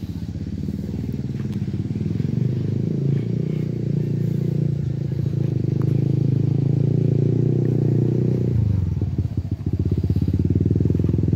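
An engine running steadily close by, building up over the first couple of seconds, with a change in its note about eight and a half seconds in.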